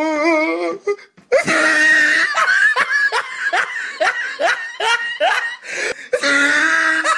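Loud, hearty laughter: a wavering drawn-out voice at the start, then a quick run of short falling 'ha' bursts, about two a second, ending in a held note.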